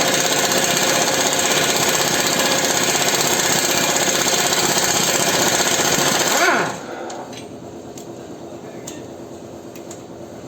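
Air-powered impact tool running at full speed on the suspension's ball-joint fastenings, a loud dense rattle that stops about six and a a half seconds in with a falling whine as it spins down. A few light tool clicks follow.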